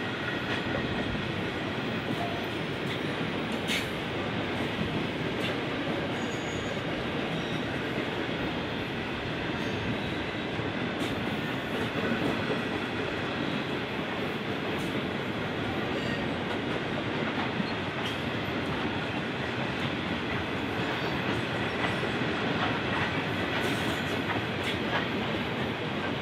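A loaded train of bogie grain hopper wagons rolling steadily past, steel wheels rumbling and clicking over the rail joints, with a faint high wheel squeal.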